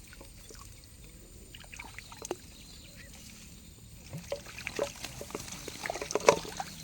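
Water splashing and dripping in short irregular bursts, busier in the second half, with one sharp splash about six seconds in, typical of a snakehead being lifted out of the water.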